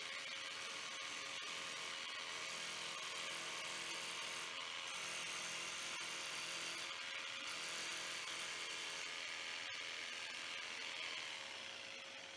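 Jigsaw fitted with a fine-tooth acrylic/metal-cutting blade running steadily as it cuts through a painted acrylic glass panel. The sound eases off near the end and stops.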